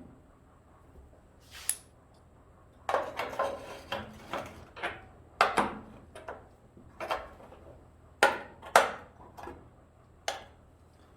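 A small cut steel piece clinking, knocking and scraping against the sheet metal of a Jeep Wagoneer hood's hinge mount as it is fed in and test-fitted. The knocks are irregular, about a dozen sharp clinks, with a rattling cluster about three to four seconds in.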